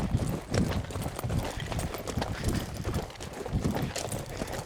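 Footsteps of a person walking at a steady pace, about two steps a second, with a brushing crunch on each step.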